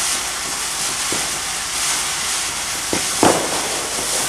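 Fireworks: a garden firework hissing steadily, with sharp pops, a faint one about a second in and two louder ones close together about three seconds in.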